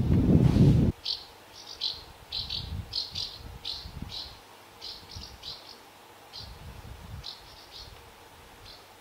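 House martins giving short, high chirps in quick clusters, growing fainter toward the end. A louder low rumble at the start cuts off suddenly about a second in.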